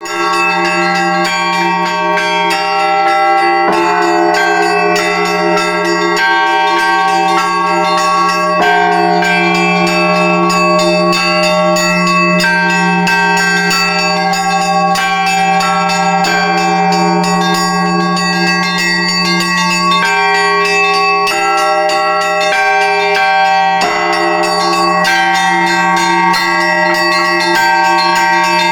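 Orthodox monastery church bells ringing a festive peal: a deep bell humming steadily underneath while smaller, higher bells are struck in a fast, continuous rhythm.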